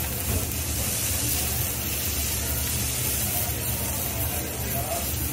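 Food sizzling on a teppanyaki iron griddle: a steady, even hiss with a low hum underneath.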